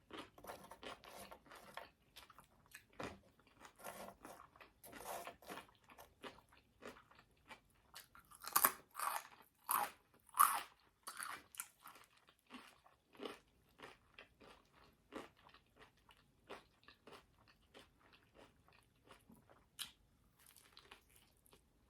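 Close-miked chewing of crunchy food, a steady run of crisp crunches from mouthful after mouthful. The crunching is loudest about nine to eleven seconds in.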